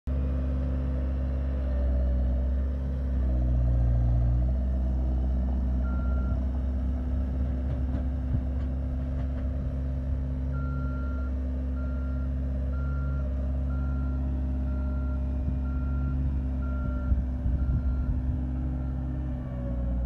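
Cat skid steer loader's diesel engine running steadily as it works a dirt pile, with its reversing alarm beeping about once a second through the second half. A few clunks sound near the end.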